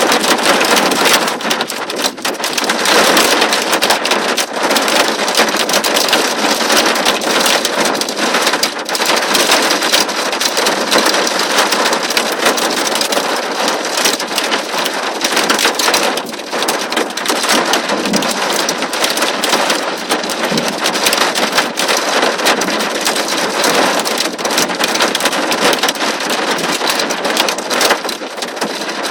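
Torrential rain coming down hard, a dense, steady hiss made of countless close drop impacts.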